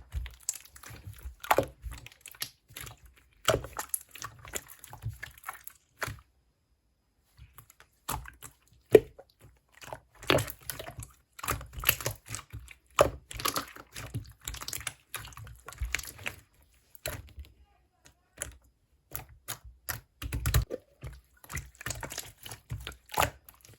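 Hands pressing, stretching and folding pink clear slime, making quick sticky clicks and pops in irregular clusters. There is a pause of about two seconds roughly a quarter of the way through.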